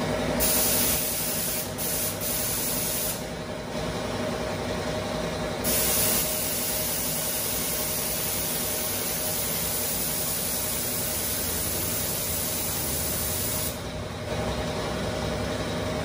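Kinki compressed-air spray gun blowing in three blasts of hiss: a short one, one lasting about eight seconds, and a third starting near the end. Under it, a shop air compressor runs with a steady hum.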